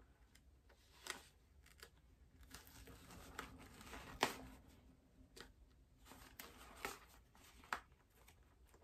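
Seam ripper cutting stitches out of a seam, with fabric rustling: faint, irregular snips and small clicks.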